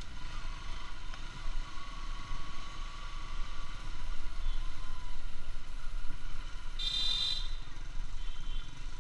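Bajaj Pulsar AS 200's single-cylinder engine running at low street speed, heard as a steady low rumble with road noise in city traffic. A short, high-pitched vehicle horn beep sounds about seven seconds in.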